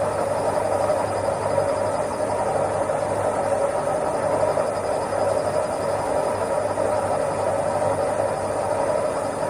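Washing machine running with a steady mechanical hum and whir, even in level throughout.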